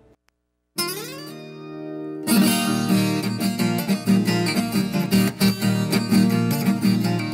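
Acoustic guitar intro to a sertanejo song. After a moment of silence, one chord rings out, then steady rhythmic strumming starts about two seconds in.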